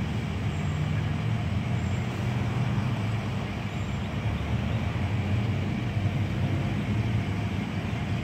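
Steady low rumble of outdoor traffic noise, with no distinct events.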